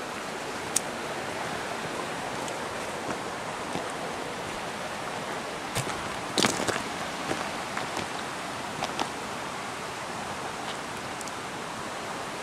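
Steady rushing of a nearby creek or river, with a few scattered sharp snaps and clicks on top, the loudest cluster about six and a half seconds in.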